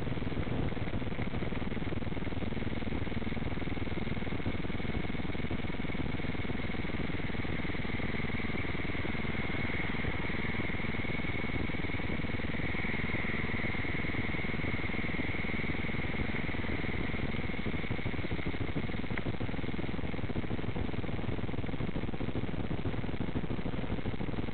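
Steady engine and road noise of a moving vehicle, heard through a low-quality on-board camera microphone, with a faint steady whine that strengthens midway.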